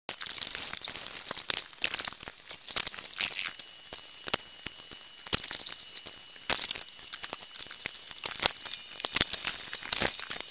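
Irregular clicks, clinks and rattles of an old ceiling fan being taken apart by hand with a screwdriver: screws, blades and blade brackets coming off and the metal fan housing being handled.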